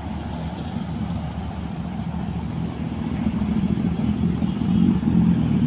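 Road traffic going by: a steady low engine rumble from passing vehicles that grows louder toward the end.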